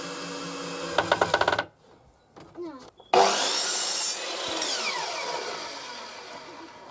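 Cordless drill driving a screw into the timber roof frame, its motor running steadily and ending in a quick rattle of clicks. After a short pause comes a loud burst of noise with a whine that falls in pitch and fades away over a few seconds.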